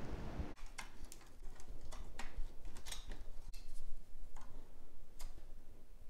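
Irregular light clicks and taps of an AMD stock CPU cooler being seated on the processor and screwed down onto the motherboard with a screwdriver. A low handling rumble comes in the first half-second, then about nine separate sharp clicks.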